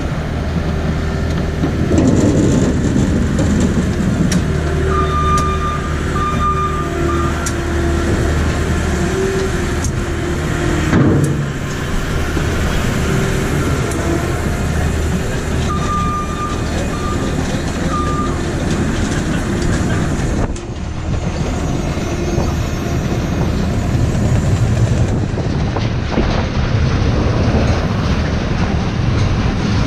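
Potato conveyor and hopper running while loading a trailer: rollers and chains rattling and potatoes tumbling along the rollers over a steady low machine drone, with a louder clatter about eleven seconds in.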